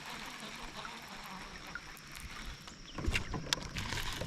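Water and hull noise from a kayak: a faint steady hiss, then louder low knocks and a couple of sharp clicks starting about three seconds in.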